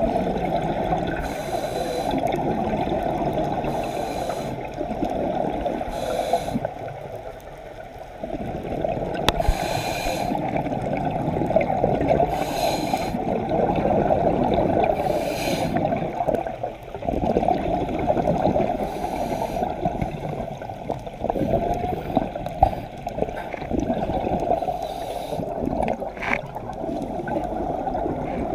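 Scuba diver breathing through a regulator underwater: short hissing inhalations every few seconds between long rushes of exhaled bubbles.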